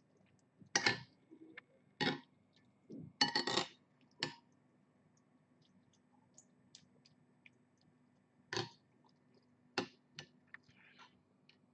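Metal spoon clinking and scraping against a ceramic bowl of noodle soup while scooping: a handful of sharp clinks at uneven intervals, one a bit longer about three seconds in.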